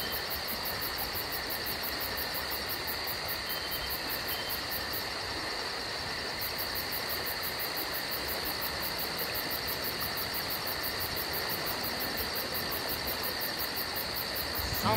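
A steady chorus of insects: continuous shrill trilling with a fast, even pulse in its highest notes.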